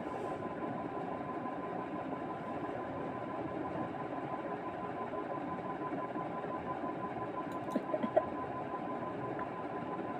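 A steady machine-like hum with a constant high whine running under it, and a few light clicks about eight seconds in.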